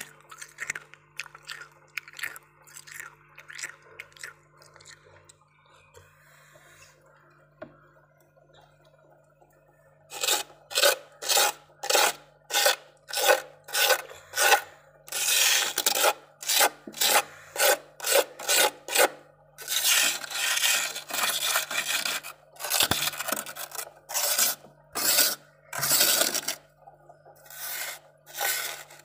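Fingers scraping and scratching thick frost off the walls and floor of a freezer. There are soft strokes at first, then from about ten seconds in loud, rapid rasping strokes, roughly two a second, with a few longer continuous scrapes.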